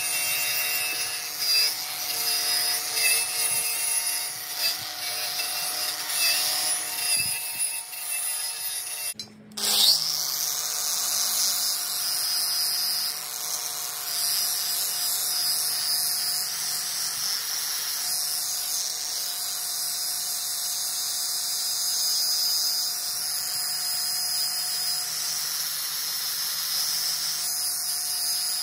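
Handheld angle grinder running with its disc grinding the steel of an axe head: a steady motor whine with the rasp of the disc on metal. The sound breaks off briefly about nine seconds in and then carries on steadily.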